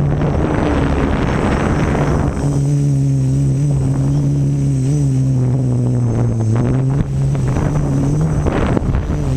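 Quadcopter's electric motors and propellers humming, the pitch dropping and rising again a few times, with bursts of wind buffeting on the GoPro's microphone over the first two seconds and near the end.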